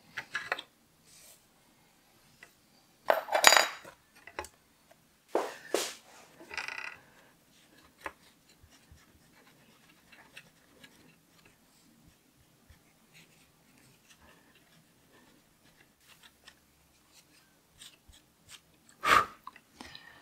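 Sharp metallic clinks and knocks of a small aluminium CPU heatsink being handled on a motherboard, the loudest a few seconds in and another near the end, with faint rubbing between as a tissue wipes old thermal paste off the chip.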